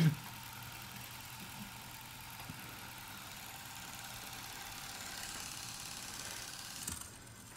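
A steady, quiet mechanical whirring hum that drops away near the end.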